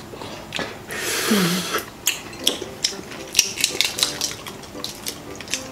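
Close-miked eating sounds: small clicks and crackles of a balut's eggshell being peeled off by hand, with wet chewing and mouth noises, and a short hum about a second in.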